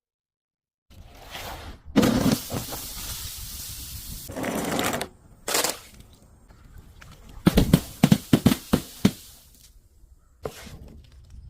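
Objects being crushed and broken: a loud crack about two seconds in followed by a crunching hiss, more crunches, then a quick run of sharp cracks and pops, and a single snap near the end.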